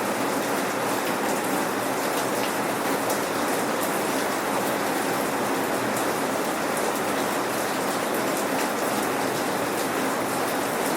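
Steady, gentle rain without thunder, with raindrops pattering on hard surfaces and many fine drop ticks.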